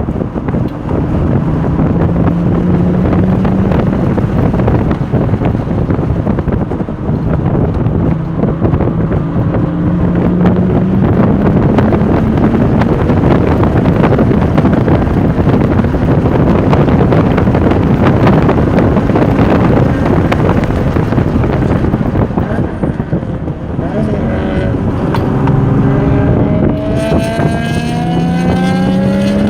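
Sports car engine pulling hard on track, its pitch climbing in long rising sweeps several times as it accelerates through the gears, under heavy wind buffeting on the microphone.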